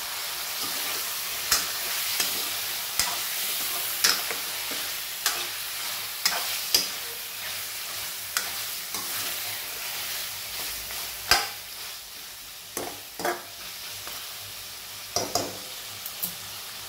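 Mutton pieces sizzling in hot oil in a metal pot as they are stirred with a metal ladle. The ladle knocks and scrapes against the pot irregularly, about once a second.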